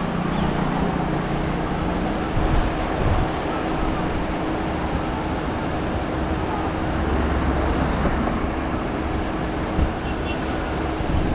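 Nissan Magnite car on the move: steady road and wind noise with a low engine hum.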